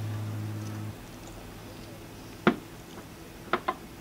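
A steady low hum that cuts off about a second in, then a few sharp clicks and knocks as hands handle the plastic air-filter housing and a ratchet under the bonnet.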